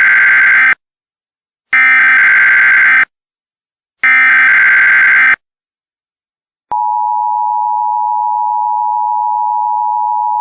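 Emergency Alert System SAME header: three harsh, buzzing data bursts of about a second each, separated by short gaps. These are the digital codes that open an alert. After a brief pause, the steady EAS attention tone begins about six and a half seconds in.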